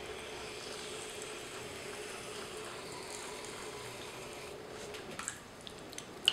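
Wet clay being thrown on a spinning potter's wheel, swishing steadily under slip-covered hands over a steady hum. A few sharp wet smacks come near the end, the loudest just at the end.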